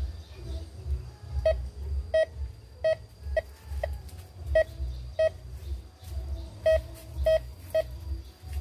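Metal detector giving a run of short, identical beeps at uneven intervals, each one the coil passing over a buried metal target, with a low rumble underneath.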